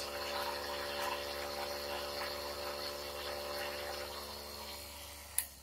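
Small milling machine running, its slot drill cutting a slot in aluminium: a steady motor whine over the hiss of the cut. The sound fades near the end, and a single sharp click follows.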